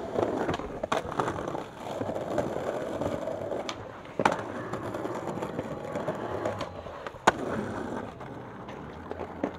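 Skateboard wheels rolling on pavement, broken by sharp clacks of the tail popping and the board landing, the loudest about four and seven seconds in.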